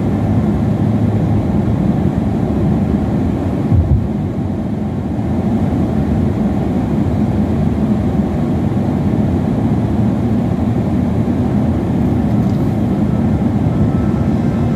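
Car driving on a road, heard from inside the cabin: a steady low rumble of tyres and engine, with one short thump just under four seconds in.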